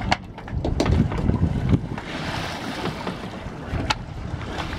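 Wind buffeting the microphone over water sloshing against a boat, with a few sharp knocks and a brief rushing hiss about two seconds in.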